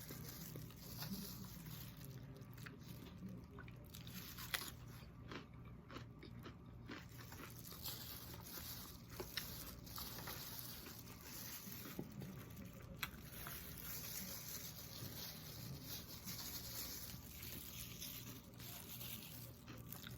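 Faint chewing and eating sounds of a person eating a meal, with a few sharp clicks scattered through.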